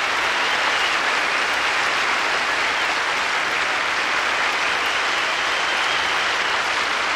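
A large theatre audience applauding steadily, a dense, even clapping that holds at one level throughout.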